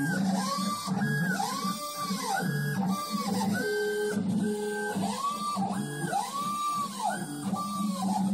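Stepper motors of a homemade mini CNC router running a program. Their whine rises in pitch, holds and falls again with each move as the axes speed up and slow down, over lower tones that step between pitches.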